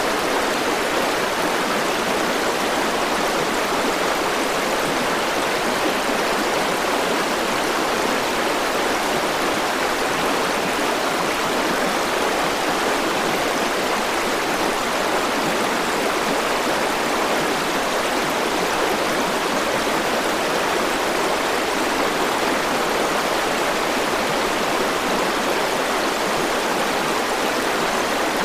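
River water rushing steadily over rocks, an even, unbroken flowing noise.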